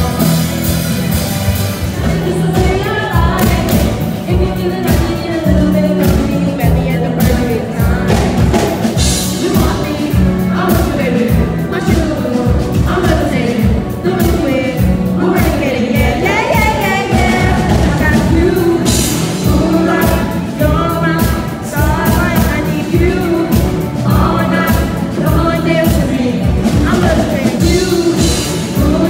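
Live stage-show pop music played loud through the venue's sound system, with a steady beat and sung vocals, and someone close to the microphone singing along.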